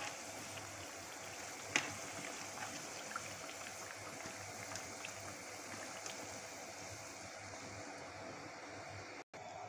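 Battered potato slices deep-frying in hot oil: a steady sizzle with scattered crackles, and a sharp click about two seconds in. The sizzle thins near the end.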